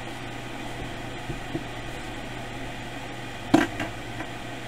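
Steady low hum and hiss of background noise, with one sharp knock about three and a half seconds in, followed by a fainter tap.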